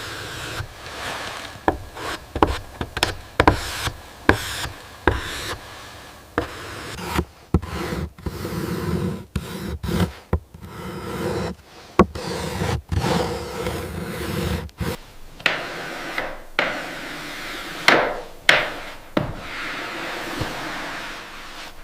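Hand tools working wood: scraping and rubbing on wood, broken by many sharp knocks, with a few louder strikes in the second half.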